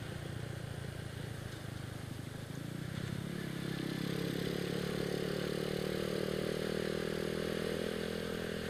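Honda Astrea Grand's single-cylinder four-stroke engine running on the move through a bored-out original Honda Supra X 125 FI muffler, getting louder from about three seconds in as the throttle opens, then holding steady.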